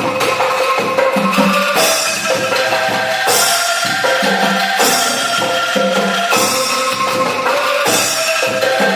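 Music with drums and percussion keeping a repeating beat over held tones.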